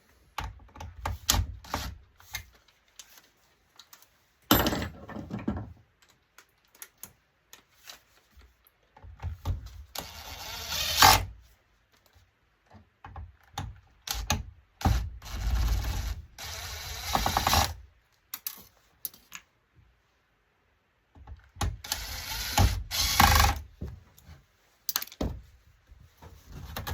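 An LCD monitor being taken apart by hand: irregular clicks and knocks of screws, tools and plastic and sheet-steel parts, with several stretches of scraping and rattling as pieces are pried and pulled apart.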